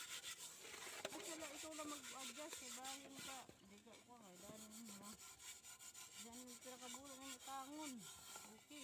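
Hand scrubbing the inside of a soot-blackened metal cooking pan with a wet, gritty paste: quiet, repeated rough rubbing strokes of grit on metal, which strip the soot off. Faint voices in the background.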